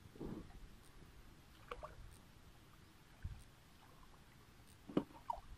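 Hands sloshing and splashing in shallow muddy water while feeling for fish, in a few short irregular bursts, the sharpest splash about five seconds in.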